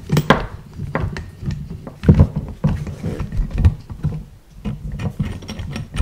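Irregular metal clicks and knocks of a C-clamp valve spring compressor being turned and loosened on a GY6 cylinder head, the tool shifting against the head.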